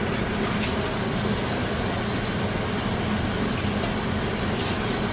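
Steady low hum with an even hiss over it, holding level throughout.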